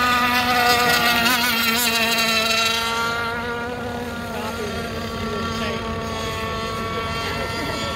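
Gasoline-powered 1/6-scale RC race boats running at speed, their small two-stroke engines giving a high, buzzing whine. The sound is loudest and brightest for the first three seconds, then drops to a steadier, duller drone as the boats move off.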